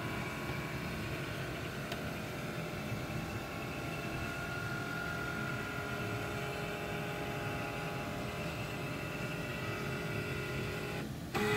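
Canon MF260-series multifunction printer's flatbed scanner running a scan: a steady motor whine as the scan head travels under the glass, cutting off suddenly near the end as the scan completes.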